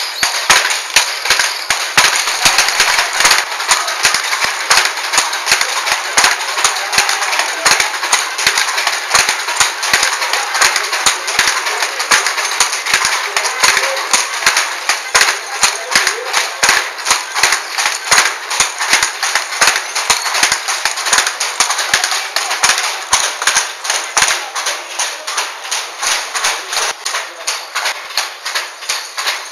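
Wooden ATBM handlooms weaving lurik cloth: a fast, uneven clatter of wooden clacks, a few each second, from the shuttle being thrown and the beater striking.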